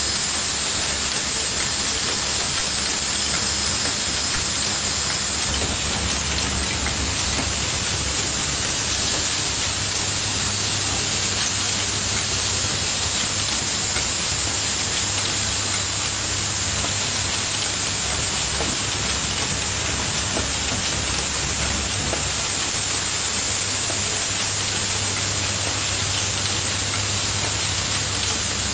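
Automated relay assembly machine running: a dense, steady rattle and hiss over a low hum, from its vibratory bowl feeders shaking small metal parts and its pneumatic stations.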